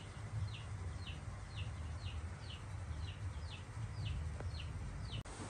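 Repeated short, high chirping calls, each falling in pitch, about two a second, over a low steady hum. The calls stop with an abrupt cut near the end.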